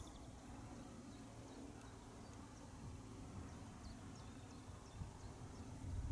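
Faint outdoor ambience: a low, steady rumble of wind on the microphone, with a few faint ticks.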